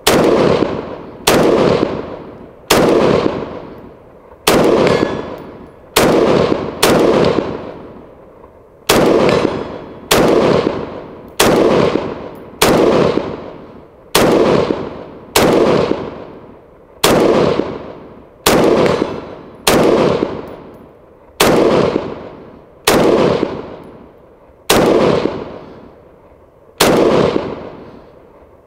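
Ikon Weapons G223 pistol, a Micro Galil-pattern 5.56×45mm gun, fired shot by shot: about twenty single shots, one every second or two, each with a long echo.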